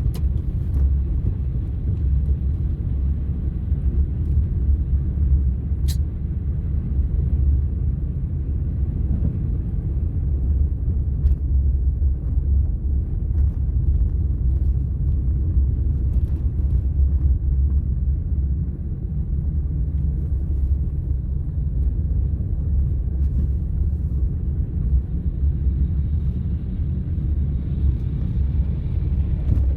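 Steady low rumble of a car driving slowly through deep snow, heard from inside the cabin, with the snow hitting the underside of the car. One faint tick about six seconds in.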